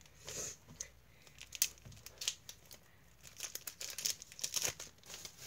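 A trading card pack's wrapper being torn open and crinkled in the hands, a run of irregular crackles and rips.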